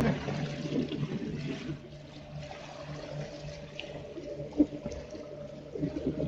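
Water rushing and splashing along the hull of a small homemade electric boat under way, with the steady hum of its twin electric motors. A single sharp knock comes about halfway through.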